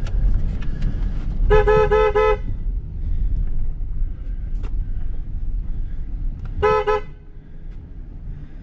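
Vehicle horn heard from inside the cab, sounded in two quick bursts of short toots, about a second and a half in and again about five seconds later, to drive a bull moose off the road.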